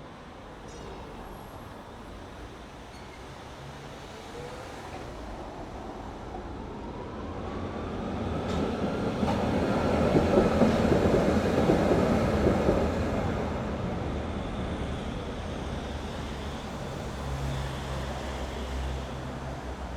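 A tram passing on a city street: its rolling rumble swells to a peak about halfway through and then fades, with a faint rising whine as it approaches. Steady low traffic noise runs underneath.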